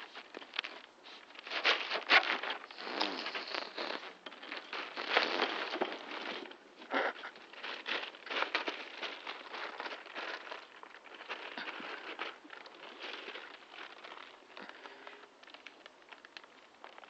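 Labrador x Staffordshire bull terrier puppy's paws scrabbling and padding on a trampoline's mat and plastic spring pad: irregular crinkling, crackling rustles and pats, busiest in the first half and quieter near the end.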